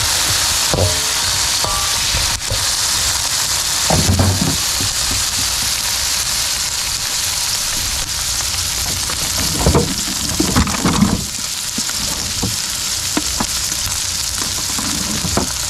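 Vegetables sizzling steadily as they stir-fry in hot oil in a pan, with a few knocks and scrapes of a utensil stirring them, the loudest cluster about ten seconds in.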